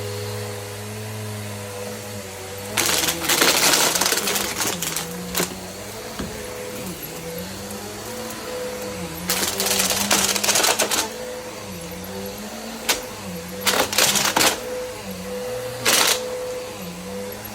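Bissell vacuum cleaner running with a steady motor hum, its pitch dipping now and then, while Lego bricks are sucked up in several bursts of rattling clatter: about three seconds in, around ten seconds, and twice more near the end.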